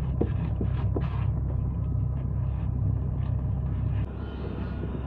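Heavy equipment engine running steadily with a low rumble, a few light knocks in the first second; the level dips a little about four seconds in.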